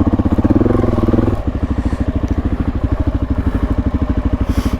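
Suzuki DR-Z400S single-cylinder four-stroke engine pulling at low speed off-road. About a second and a half in the throttle closes and it drops to a slow, even beat near idle.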